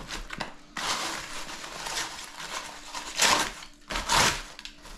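Aluminium foil crinkling and crackling as it is handled and folded by hand, with two louder crumples about three and four seconds in.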